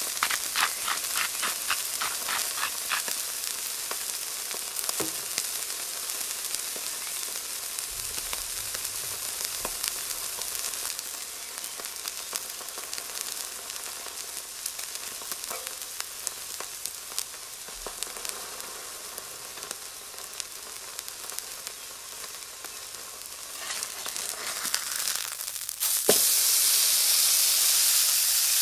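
Ribeye steak sizzling in clarified butter on a hot steel griddle plate: a steady frying hiss with scattered crackles. About 26 seconds in there is a sharp scrape, and the sizzle turns suddenly much louder as the steak is flipped onto its raw side.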